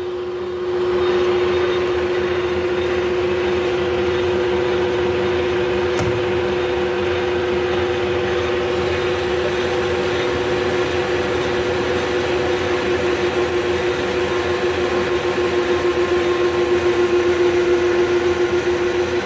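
Clausing Colchester 13-inch gearhead lathe running at 570 RPM, its geared headstock giving a steady whine while it takes a 50-thousandths cut.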